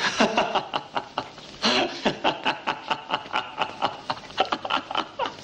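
A man laughing: a long run of short, breathy laughs, several a second.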